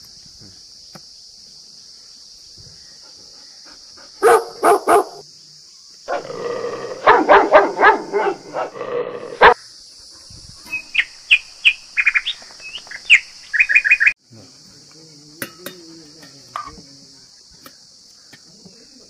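Dogs barking: three quick barks about four seconds in, then a longer run of barking from about six to nine and a half seconds. Then a quick series of high bird chirps, over a steady high-pitched hiss.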